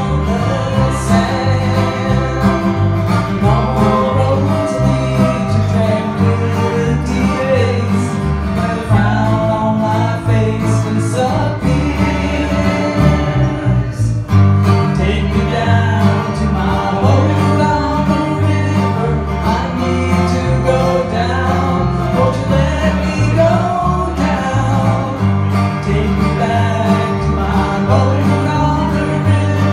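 Two guitars playing a song live, with a singing voice over them and a steady bass line underneath.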